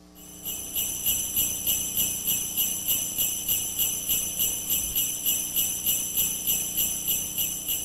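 Sleigh bells shaken in a steady, even rhythm, a bright jangle that fades in just after the start and keeps on at an even pace.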